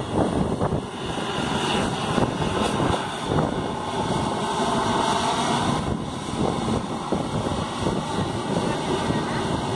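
Jet engines of a taxiing Airbus A320 airliner running at low thrust, a steady rushing whine.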